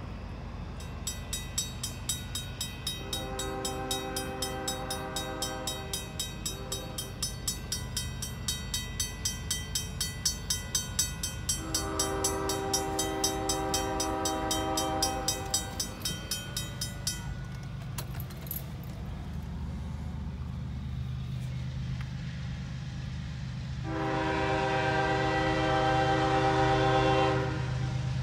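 Railroad grade-crossing bells ringing steadily while a CSX freight's diesel locomotive sounds two long chord blasts on its horn. The bells stop about two-thirds of the way through, and a third, louder horn blast sounds near the end over a low engine rumble.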